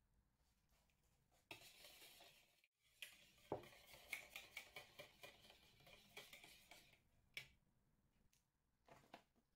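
Wire whisk beating a runny mix of eggs, yogurt and oil in a bowl, faint, the wires clicking against the bowl about four times a second, then a single sharper knock.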